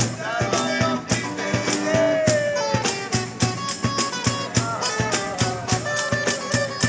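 Live acoustic street music: two acoustic guitars playing an arabesk tune over a steady cajón beat, the drum struck several times a second.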